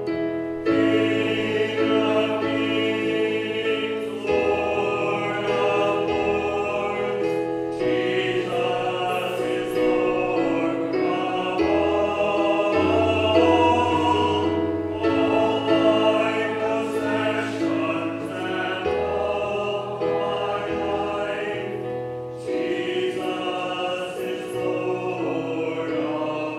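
Church congregation singing a hymn with instrumental accompaniment, line by line with short breaks between phrases.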